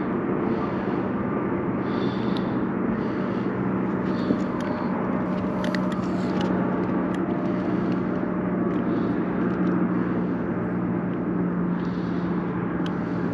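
Bow-mounted electric trolling motor running with a steady hum, over wind and water noise.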